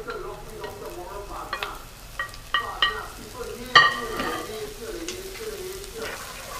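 Smoked catfish tipped into a frying pan of sautéing onion and garlic in oil, sizzling as a wooden spoon stirs and scrapes it through, with scattered knocks against the pan. The loudest sound is a sharp ringing clink about four seconds in.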